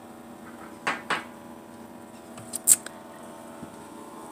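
A few short clicks and rustles of food containers being handled in an open refrigerator, about a second in and again near three seconds, over a steady low hum.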